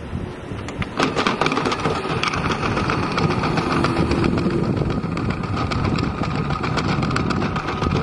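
Theo Klein Miele toy washing machine's electric drum motor starting about a second in and running with a steady whine, while small plastic balls rattle and clatter in the turning drum.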